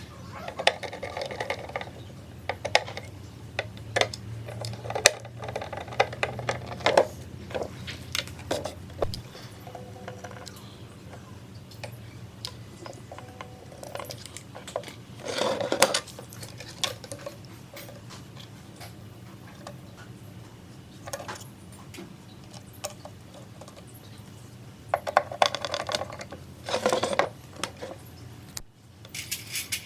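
Irregular clicks, taps and clatter of small metal parts and tools being handled, with a few longer noisy bursts over a faint steady low hum.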